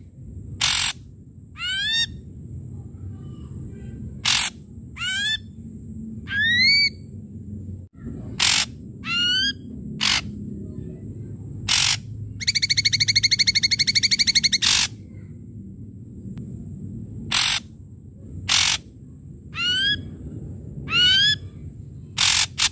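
Ashy drongo calling. It gives loud, harsh single notes that alternate with quick phrases of whistled notes, each phrase climbing to an upward slur. About twelve seconds in comes a rapid buzzing rattle of a couple of seconds.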